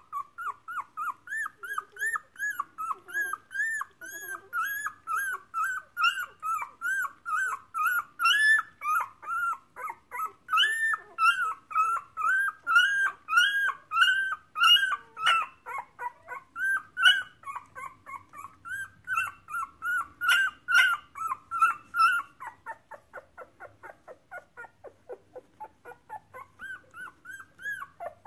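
Two-week-old Brittany puppy crying: a steady run of short, high, squeaky whines, about three a second, growing fainter in the last few seconds.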